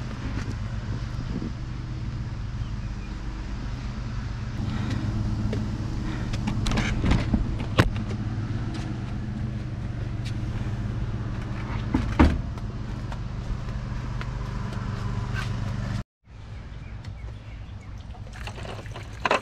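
A motor drones steadily in the background, with sharp knocks about eight and twelve seconds in. It cuts off abruptly about sixteen seconds in, and quieter background sound follows.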